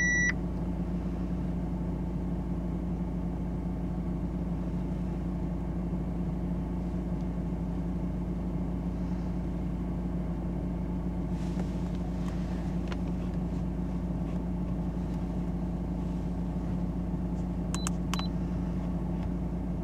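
Audi A4 B8's engine idling steadily, heard from inside the cabin. A short electronic beep sounds at the very start and a few short clicks come near the end.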